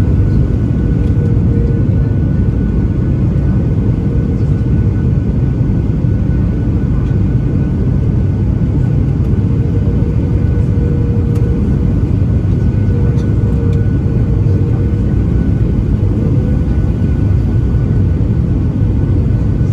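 Steady cabin roar of a Boeing 737-800 on approach, heard from a window seat beside the wing: the CFM56-7B turbofan engines and the airflow, a deep even rumble with a steady hum running through it.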